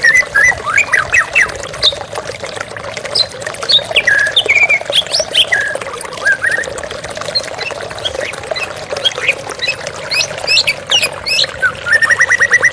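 White-rumped shama singing a varied song of sharp whistled notes and quick chirps over a steady rush of flowing water. A fast trill of evenly repeated notes comes in near the end.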